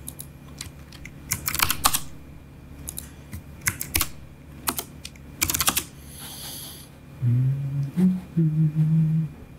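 Computer keyboard keys clicking in three short bursts of typing, entering numbers into fields. Near the end comes a short low hum of a few stepped notes.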